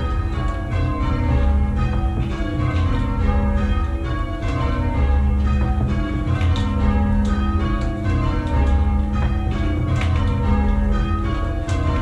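Change ringing on a ring of six church bells, tenor about 9 cwt in A♭, most of them cast by Henry Penn in 1719, rung full circle and heard from the ringing chamber below them: a quick, continuous sequence of overlapping strikes, with a low rumble underneath.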